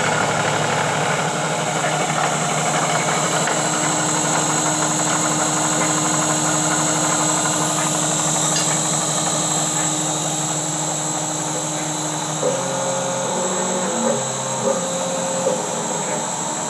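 DIY CNC-converted milling machine at work: spindle running and stepper motors driving the axes, a steady mechanical whir with held tones. About twelve seconds in, the motor tones start changing pitch in steps and a few short clicks sound as the axis moves change.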